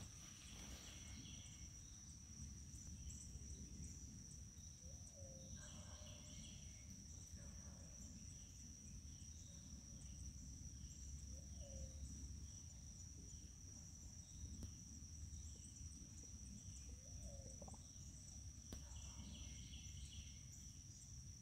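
Faint pasture ambience: a steady high-pitched insect drone, with scattered short bird chirps and a few brief low calls.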